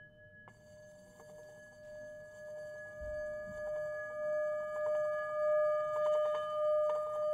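Sustained electronic drone of a few steady pure tones that enters about half a second in and swells gradually louder with a slow waver.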